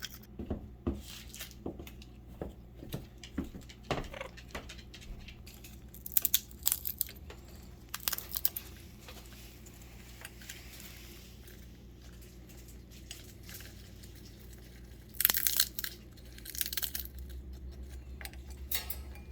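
Pet bird at its cage and perch making scattered sharp clicks and short crackly bursts. The loudest burst comes about fifteen seconds in.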